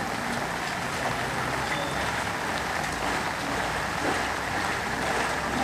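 Steady rain falling on floodwater, an even hiss without a break.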